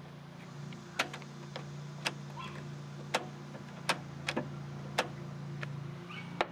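Sharp, irregular plastic clicks and taps, about nine of them, as a car's interior door trim panel and handle are handled and fitted back onto the door, over a steady low hum.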